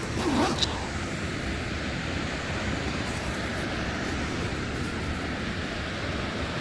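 Steady, even rush of a large waterfall's falling water. A brief voice sound comes just at the start.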